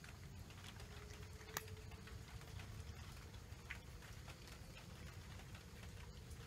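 A cat eating: faint scattered clicks and crunches of chewing, with one sharper click about a second and a half in, over a low steady background rumble.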